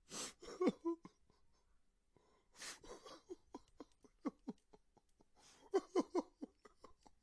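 A man crying: a sharp gasping inhale at the start and another about two and a half seconds in, each followed by short, broken sobs that slide down in pitch, with a quick run of sobs near the end.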